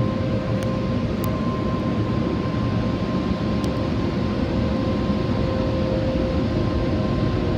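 Automatic car wash blower dryers running steadily: a loud rush of air with a steady whine, heard from inside the car's cabin.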